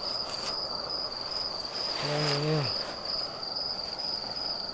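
A cricket chirping in an even, repeating pulse on one high note. About two seconds in, a man makes a short hum-like vocal sound that falls in pitch at the end.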